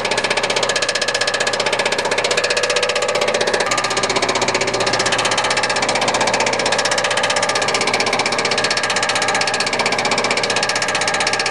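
Ford diesel truck engine running steadily with a rapid, even diesel clatter.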